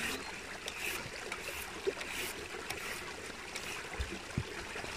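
Water flowing steadily, with two soft low thumps about four seconds in.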